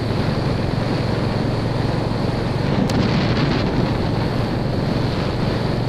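Motorcycle riding at road speed: steady wind buffeting the microphone over the running engine, with a single sharp click about three seconds in.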